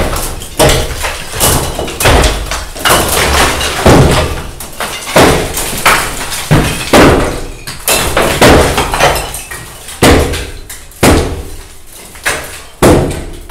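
Workers demolishing a house by hand: repeated heavy blows breaking up the masonry, irregular at roughly one strike a second, each a sharp crack that dies away quickly.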